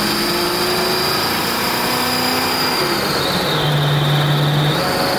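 1978 Mercury Colony Park's 460 big-block V8 accelerating the wagon, heard from inside the cabin over road noise. The engine note climbs for about three seconds, then drops as the automatic transmission shifts up. It pulls cleanly, without the bog the driver was testing for.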